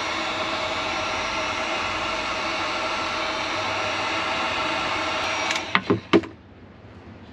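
Electric heat gun running steadily, its fan whining and air rushing as it shrinks adhesive-lined heat-shrink tubing onto a crimped copper lug of a battery cable. It switches off a little over five seconds in, followed by a few knocks as it is set down on a wooden board.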